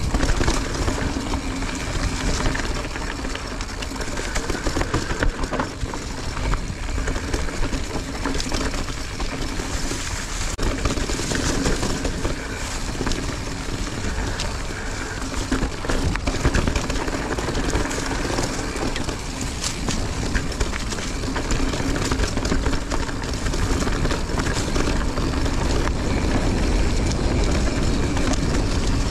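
Mountain bike rolling along a dirt singletrack trail: a continuous rumble of knobby tyres on the ground with constant rattling and clicking from the bike.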